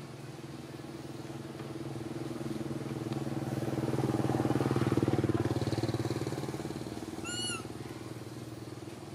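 A passing vehicle's engine hum that grows louder to a peak about five seconds in, then fades away. A brief high squeak sounds near the end.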